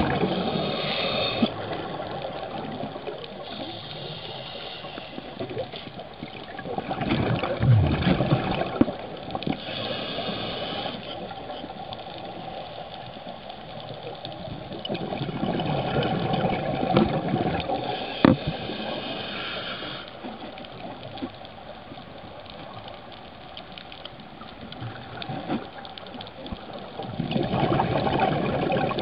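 A scuba diver breathing through a regulator underwater: a hiss on each inhale and a rush of gurgling exhaled bubbles, recurring every several seconds.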